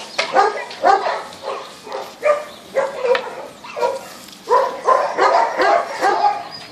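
Dogs barking: many short barks in quick succession, coming thicker and overlapping in the second half.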